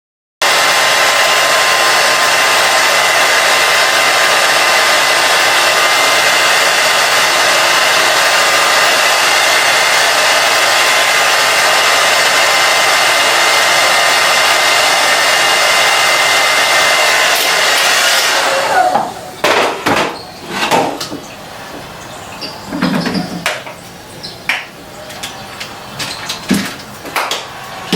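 Handheld blow dryer running steadily with a faint whine, drying the gel laid on the wig's edges. It switches off about eighteen seconds in, followed by scattered clicks and knocks.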